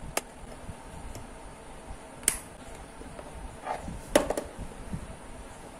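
Plastic pencil box being handled and turned over, giving a few sharp clicks and taps of plastic. The loudest click comes about four seconds in.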